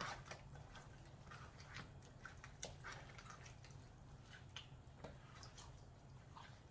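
Faint wet squelching and scattered light clicks of raw turkey pieces being mixed with a thick blended marinade, over a low steady room hum.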